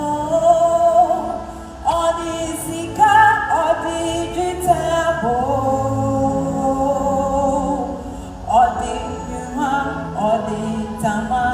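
Singing of a slow sung refrain in a non-English language, with long held notes that glide from one pitch to the next.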